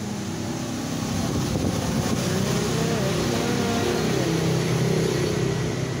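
A motor vehicle's engine running as it passes, a low hum with a wavering pitch that grows louder over the first few seconds and drops away near the end.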